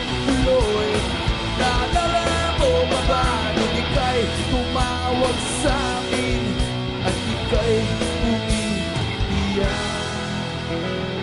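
Live rock band playing an instrumental break: an electric guitar lead line with bending notes over bass, drums and cymbals.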